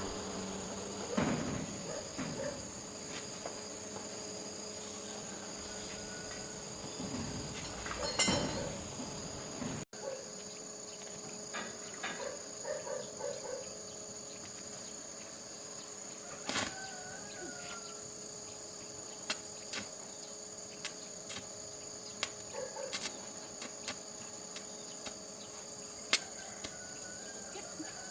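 Steady high-pitched insect trilling, like crickets, with scattered clicks and knocks; the loudest knocks come about eight and sixteen seconds in.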